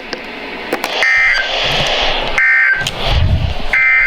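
Three short bursts of two-tone digital data from a NOAA Weather Radio broadcast, evenly spaced a little over a second apart. These are the SAME end-of-message codes that close the tornado watch alert.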